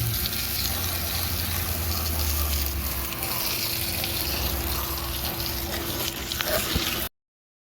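Water spraying hard onto a truck wheel, rinsing off tire cleaner: a steady hiss with a low hum under it at first. It cuts off abruptly about seven seconds in.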